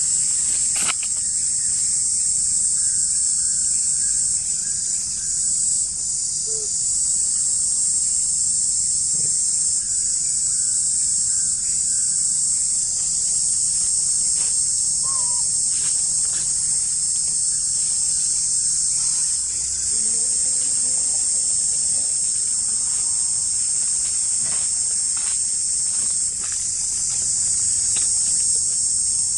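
Chorus of insects making a loud, steady high-pitched drone without a break.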